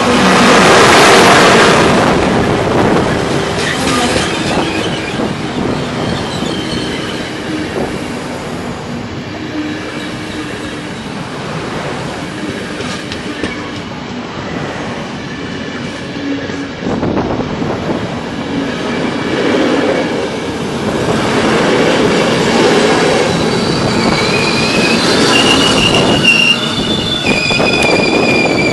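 InterCity train hauled by an Italian E.402 electric locomotive passing close at speed. The rush of the locomotive is loudest in the first couple of seconds, then the coaches' wheels clatter over the rail joints. In the last few seconds the steel wheels squeal with a high, wavering note.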